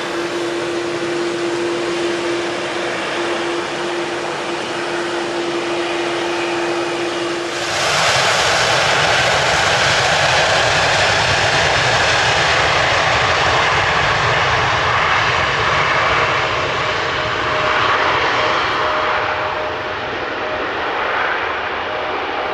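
Boeing 787-9's General Electric GEnx turbofan engines. First a steady whine over a hiss, then about eight seconds in a sudden jump to a much louder jet roar as the airliner runs down the runway at take-off thrust. The roar eases slightly near the end.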